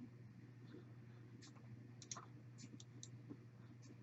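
Faint computer mouse clicks, about six or seven scattered short clicks, some in quick pairs, over a faint steady hum.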